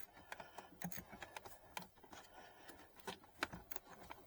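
Light, irregular clicking of a 1/4-inch ratchet with a universal joint and T20 socket, worked in short strokes to drive in a screw.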